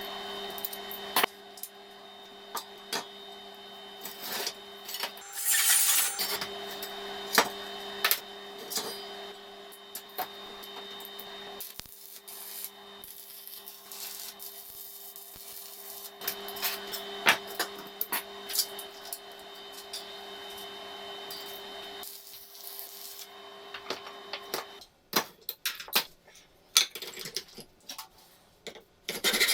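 Metal parts and tools being handled in a workshop: scattered clinks, knocks and rubbing over a steady electrical hum that cuts off near the end.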